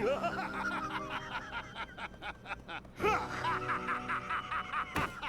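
A male cartoon character's cackling laughter in rapid, rhythmic pulses, over soft background music.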